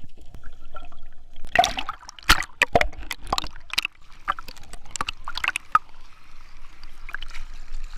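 Sea water sloshing and splashing around a snorkeler, with some gurgling. The splashes come irregularly, busiest from the second to the fourth second and again around the sixth.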